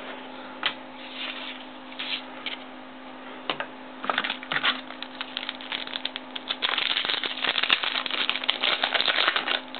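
Baseball trading cards and a card pack wrapper being handled: scattered light clicks and rustles that turn into dense crinkling and rustling from about seven seconds in.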